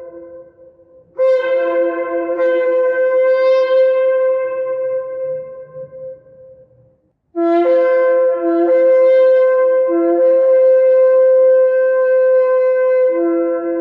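Ram's horn shofar blown in long held blasts: one fades out in the first second, a second starts abruptly, holds for about five seconds and tails off, and after a short silence a third long blast holds steady, then drops to a lower note near the end.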